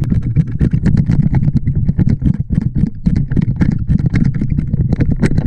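Underwater sound picked up through an action camera's housing: a low, steady water rumble with many rapid, irregular crackles and clicks.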